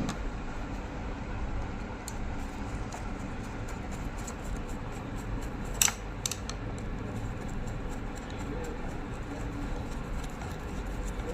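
Faint clicks and taps of a screwdriver and small metal parts being handled on a zigzag sewing machine as screws are tightened, with one sharper click about six seconds in, over a steady low hum.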